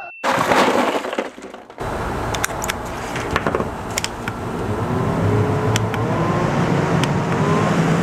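Ice cubes pouring and rattling out of a bag into a plastic Igloo cooler. Then a small USB fan set in the cooler lid runs with a steady rush of air, with a few clicks and a faint hum that rises slightly as it is adjusted.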